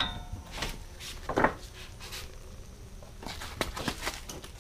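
A handful of light, irregular knocks and clicks from a socket and bar being worked on a 32 mm front axle nut, with a cluster of small clicks near the end.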